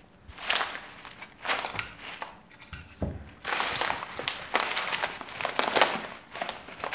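Polythene food packet of dried chickpeas crinkling and crackling in irregular bursts as it is handled and turned over, with a soft knock about three seconds in.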